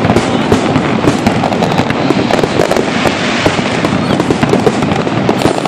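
A fireworks display crackling and popping continuously, many small bursts packed closely together without a break.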